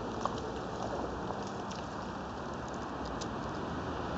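Steady rushing of river water, with a few faint ticks.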